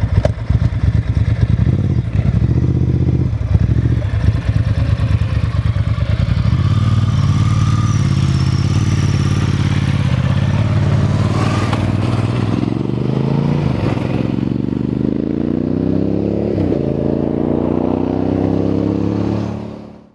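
Twin-cylinder motorcycle engines: a lumpy, pulsing idle just after starting, then the bikes pull away and accelerate. In the last several seconds the engine note rises three times in steps, shifting up through the gears, before the sound cuts off suddenly near the end.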